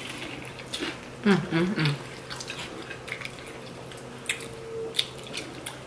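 Chewing and biting of corn on the cob coated in crushed Flamin' Hot Cheetos: scattered crunches, wet mouth clicks and smacks. About a second and a half in comes a short hummed voice sound, the loudest thing heard.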